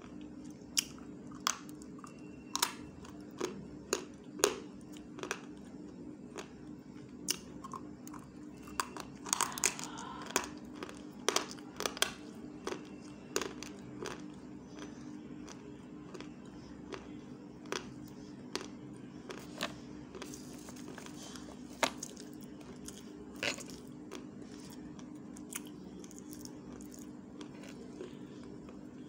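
A person biting off and chewing pieces of a brittle white stick close to the microphone: irregular sharp crunches, thickest about ten seconds in and fewer toward the end, over a steady low hum.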